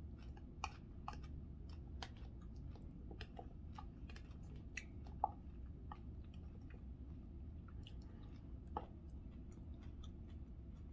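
A person quietly chewing salad, with scattered small clicks and ticks over a steady low background hum.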